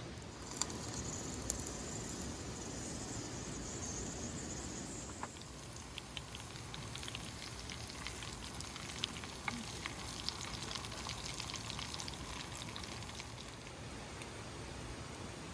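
Food frying in hot oil, with a steady sizzling hiss for the first few seconds and then scattered crackles and pops.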